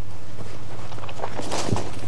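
Faint footfalls and rustling as a soldier moves off through tall grass, with a soft thud near the end, over a steady low hum.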